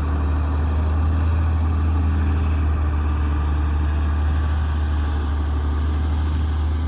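Diesel engine of a Daewoo 170W-3 excavator running steadily, a deep even drone with no change in speed.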